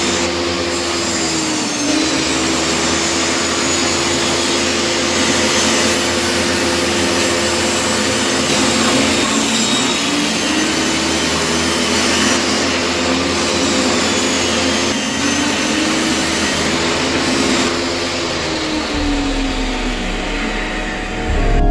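Table saw running with a loud, steady rushing noise. Its motor note sags several times as the blade feeds through plywood strips, then climbs back between cuts.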